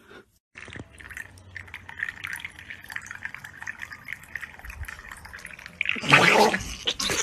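A pet licking and lapping, a run of soft, irregular wet smacking sounds. A person's voice breaks in loudly about six seconds in.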